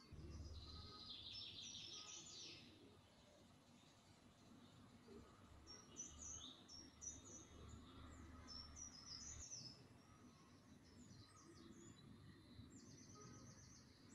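Small birds chirping faintly: a fast trill of about two seconds at the start, then runs of short high chirps, and a buzzy repeated call near the end, over a faint low rumble.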